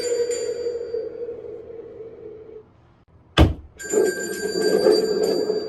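Bell of a Nightmare Specter Halloween animatronic ringing over a low drone, fading away within about a second and a half. After a short near-silence comes a single sharp knock, then the bell rings again with the drone.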